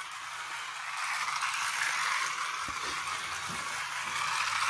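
Battery-powered toy race car running along a flexible plastic track, its small electric motor whirring steadily.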